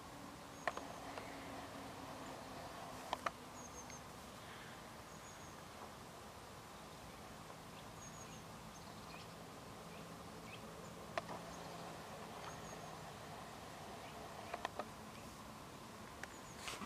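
Quiet lakeside ambience: a faint steady hum under short, high chirps of small birds every second or two. A handful of sharp clicks stand out, two in quick succession about three seconds in.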